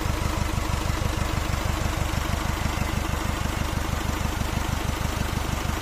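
Turbocharged diesel engine idling steadily with an even, rapid pulse, while its fuel system is being bled of air.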